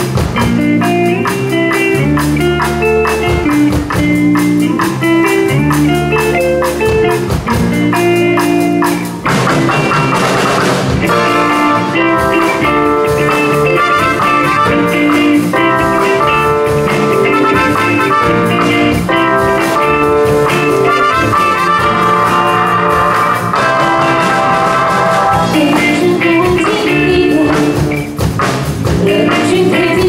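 A live rock band playing loudly: electric guitar, electric bass, drum kit and keyboard. The music grows fuller about nine seconds in.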